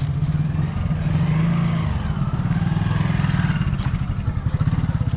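A motorcycle engine running steadily, with a low, even rumble.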